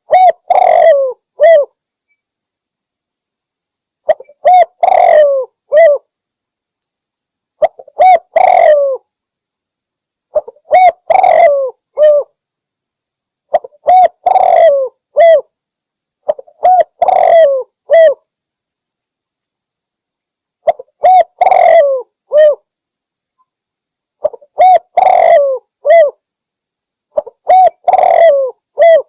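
Spotted dove (Javanese derkuku) cooing: a phrase of several coo notes, repeated about every three and a half seconds, eight times, with silence between the phrases.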